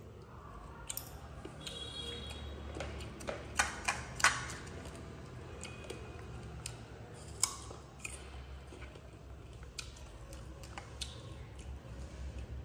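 A baby monkey biting and chewing slices of raw guava: crisp, sharp crunches scattered irregularly, several close together about four seconds in.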